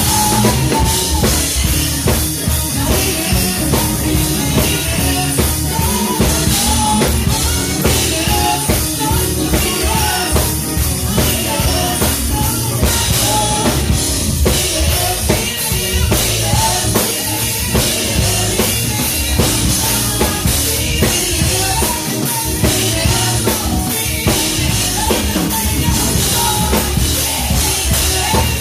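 Live gospel band music with a drum kit playing a steady beat and a bass line.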